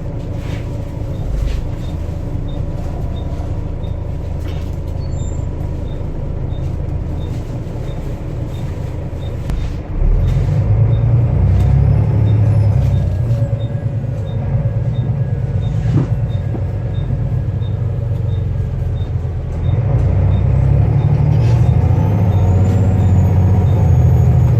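Volvo B7TL bus's six-cylinder turbo-diesel engine running, growing louder as it pulls under load about ten seconds in and again near the end. Faint high whistles from the turbocharger rise and fall in the last few seconds, and a faint regular ticking runs under it.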